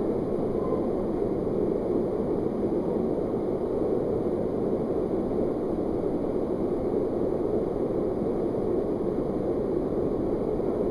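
Small waterfall pouring down a narrow rock canyon: a steady, continuous rush of water.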